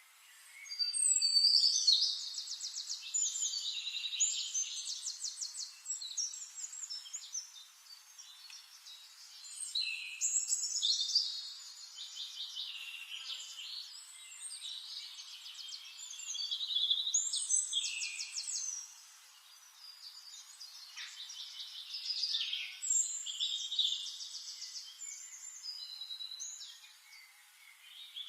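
Small songbirds singing, several overlapping phrases of high chirps and rapid trills that swell in loud spells about every six seconds and ease off in between.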